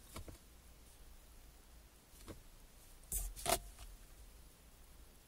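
Quiet car cabin with a few short clicks: a faint one near the start, another about two seconds in, and a louder pair close together about three seconds in.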